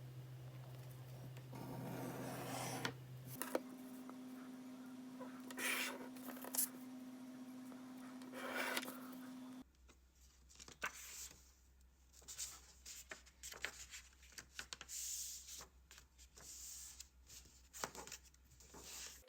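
Light scraping and rubbing of small handwork at a table, turning to scattered small clicks and scrapes in the second half, over a steady low hum that changes pitch twice.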